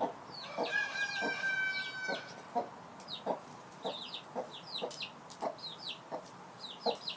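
A broody hen clucking in short, repeated low notes about twice a second to the chicks she has adopted, while the young Cuckoo Marans and Buff Orpington chicks peep in high, falling chirps, often in pairs.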